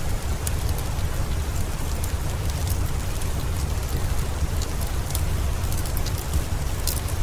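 Steady rain mixed with a fireplace crackling, sharp little crackles scattered over the even hiss of the rain.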